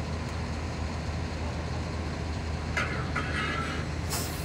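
Heavy diesel engine running steadily at a low, even hum, with brief sharper higher-pitched noises over it about three and four seconds in.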